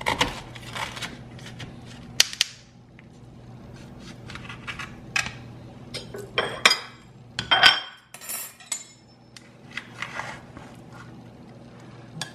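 Serrated knife sawing through a baked apple pie's crust, with irregular crunching and scraping as the blade catches on the foil pie tin. Sharper knocks come about two seconds in and again past the middle.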